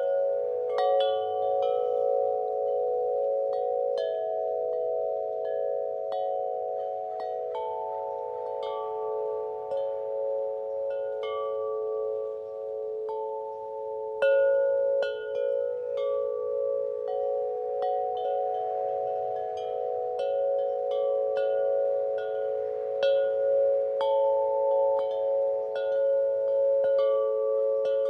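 Wind chimes ringing in the wind: several tuned tones struck at irregular moments and ringing on, overlapping into a continuous shimmer.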